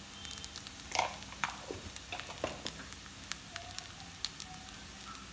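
Quinoa and vegetables sizzling gently in a frying pan, with scattered small crackles and pops.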